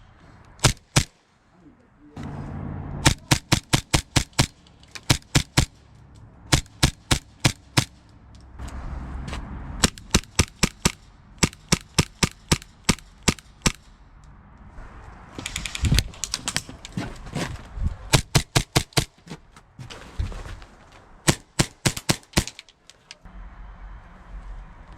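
HPA-powered airsoft pistols firing in rapid strings of sharp shots, several shots a second, with short pauses between the strings.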